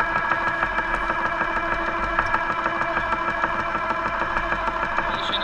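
Radio-controlled Panther tank model running: a steady engine-like hum with a mechanical whine, picked up close by the camera mounted on it.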